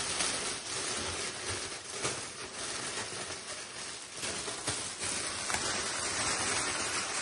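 Clear cellophane wrap crinkling and rustling as it is gathered up by hand around a tray of sweets, a dense crackle of small clicks throughout.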